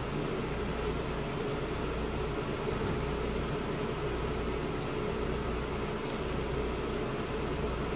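Steady mechanical hum with a constant hiss, like a fan or air-conditioning unit running, unchanging throughout.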